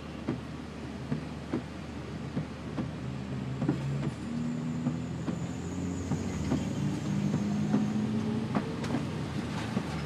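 Vehicle driving through standing water on a flooded road in heavy rain, heard from inside the cab: steady rain and road-water noise with light knocks about every two-thirds of a second. An engine hum comes up about three seconds in.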